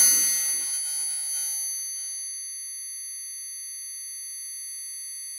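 Eurorack modular synthesizer ending a passage: the lower notes die away over the first two seconds or so, leaving several high, steady sine-like tones held at an even level.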